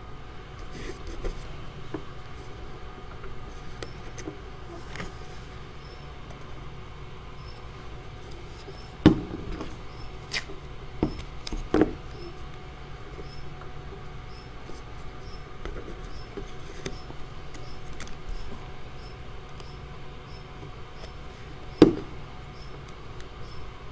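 Steady low room hum with a few sharp taps and light handling noises from paper strips and craft materials being worked on a tabletop. The loudest taps come about nine seconds in and again near the end.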